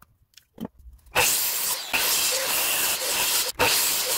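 Sliding compound mitre saw running and cutting through a wooden block: a loud, even hiss of motor and blade noise that starts about a second in, broken twice for an instant, after a couple of faint clicks.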